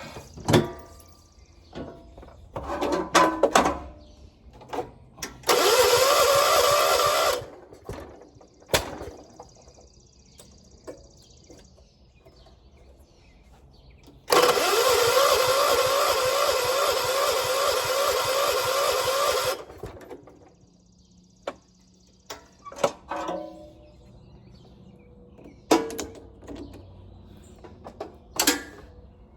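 1976 John Deere 300 lawn tractor's starter cranking the engine, which does not catch: a short crank of about two seconds, then after a pause a longer crank of about five seconds, the cranking pulsing evenly several times a second. The tractor is being started off a dead battery with a jump. Scattered clicks and knocks come between the attempts.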